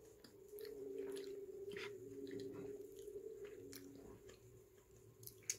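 A person chewing a mouthful of bagel sandwich close to the microphone, with scattered small mouth clicks. One sharp click near the end.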